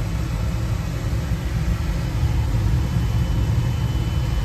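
Oil burner on an oil-fired boiler running steadily, a constant sound that sits mostly in the low range, shortly after light-off while the initial smoke burns off.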